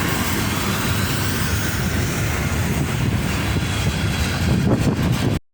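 BNSF freight train running, a steady low rumble with hiss, which cuts off suddenly near the end.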